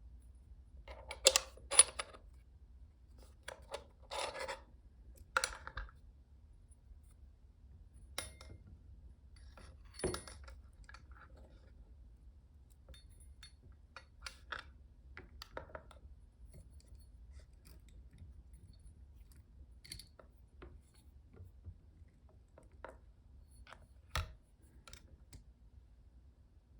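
Intermittent light metallic clinks and short scrapes of small metal parts being handled, a loud pair about a second in, then sparser clicks spread through.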